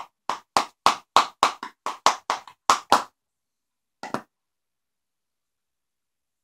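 A can of Copenhagen Wintergreen Long Cut dip being packed, snapped with a flick of the wrist: about a dozen sharp thwacks at roughly four a second, then two more about a second later.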